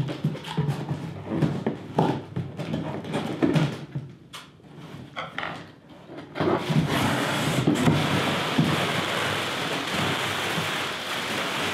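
Cardboard shipping box being opened: scissors cutting the packing tape and the flaps being handled, with scattered knocks and scrapes. From about six and a half seconds in, a steady crinkling rustle as plastic packing is pulled out of the box.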